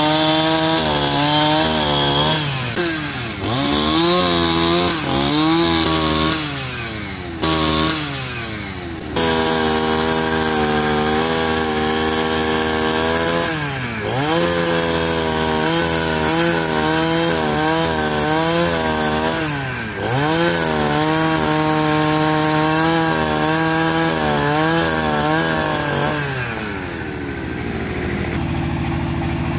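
Petrol chainsaw at full throttle cutting through a log, its engine note sagging several times as the chain bites into the wood and picking back up. Near the end it drops to a steady idle.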